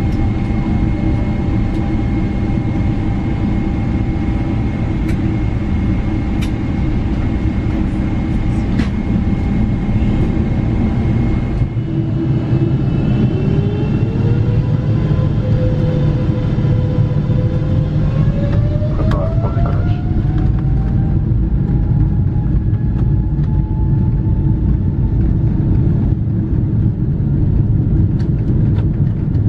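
Jet airliner cabin noise from a Boeing 777-300ER: a steady low rumble with faint steady whines. Partway through, the takeoff roll begins. The GE90-115B engines spool up, and their whine rises in pitch over several seconds above the rumble.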